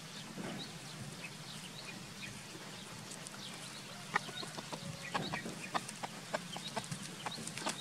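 A rooster clucking in short, quick calls that come thick and fast from about halfway, over a steady low hum.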